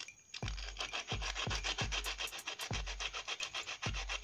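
Solder rubbed back and forth against sandpaper in quick, even strokes, a steady scratching as the solder is ground into fine particles. There is a brief lull just after the start.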